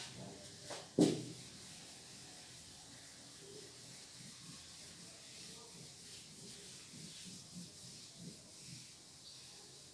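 Whiteboard eraser rubbing across the board in repeated wiping strokes, wiping off the written working. There is a brief knock about a second in.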